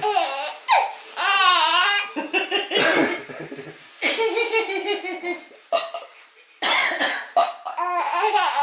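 Baby laughing hysterically in a run of belly-laugh bursts separated by short pauses.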